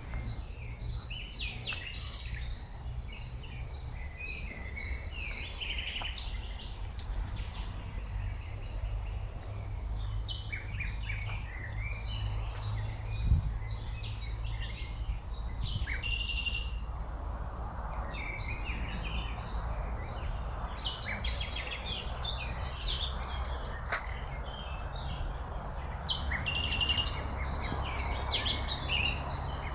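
Small songbirds chirping and singing, many short calls overlapping, over a low steady rumble. A single thump comes about thirteen seconds in, and a rushing hiss comes in from about seventeen seconds.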